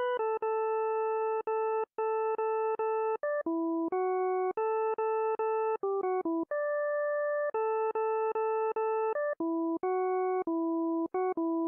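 Desmos graphing calculator's tone generator playing a song melody as steady electronic beeping tones. Each note is held, then cut off by a short gap, and the pitch changes from note to note.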